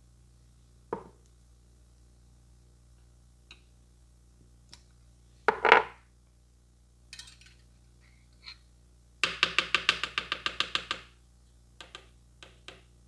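Barber's hands striking the head in a fast run of about fourteen percussive taps, some eight a second, over about two seconds, typical of head-massage tapping. Before the run come a few single slaps and knocks, the loudest about halfway through, and a few light ticks follow it.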